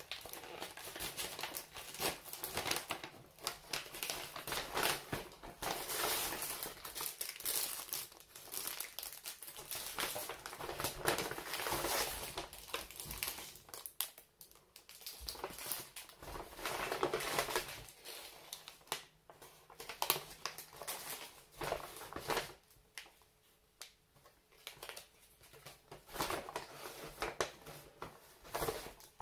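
Paper grocery bag and plastic food bags crinkling and rustling as they are handled and unpacked, in uneven bursts with short lulls.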